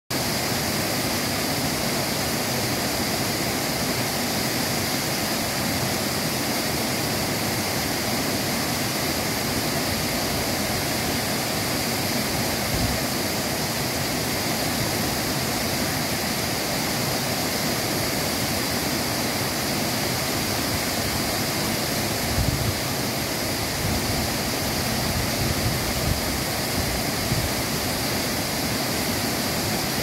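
Waterfall pouring down a rock face: a steady, unbroken rush of falling water, with a couple of brief low bumps.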